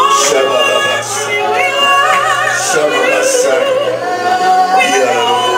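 Gospel worship music: a solo voice sings wordless, melismatic runs with heavy vibrato over sustained chords.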